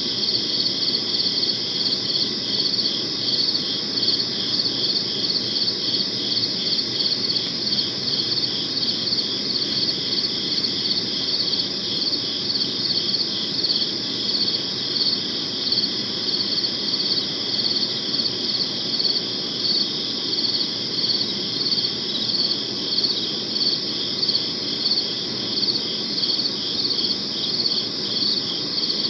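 Crickets chirping in a steady, evenly pulsing high-pitched chorus.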